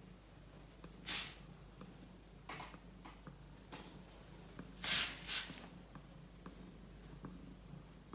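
Domestic cat purring steadily while being stroked. A few short brushing or rustling sounds come through, about one, two and a half, and five seconds in; the loudest is a quick pair near five seconds.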